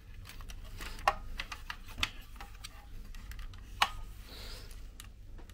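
Light clicks and taps of plastic as the opened casing of a Hoover Jovis Cyclean handheld vacuum is handled and turned over, a few sharper clicks about a second, two seconds and nearly four seconds in, over a faint low hum.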